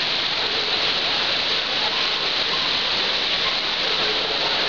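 Heavy rain shower falling steadily on the street, a dense, even hiss with no let-up.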